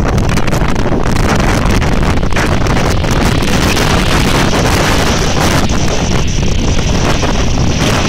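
Strong wind buffeting the microphone with a heavy, steady rumble, over storm surf breaking and washing up a shingle beach.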